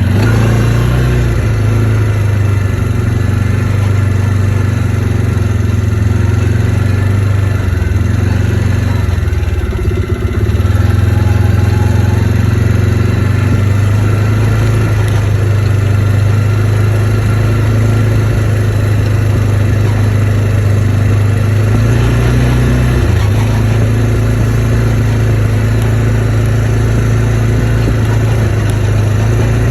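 ATV engine running steadily at a constant note. It drops off briefly about a third of the way through, then picks back up, and the note shifts again later on.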